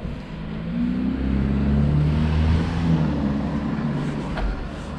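A car passing close by, its engine hum and tyre noise swelling to a peak about two to three seconds in, then easing off.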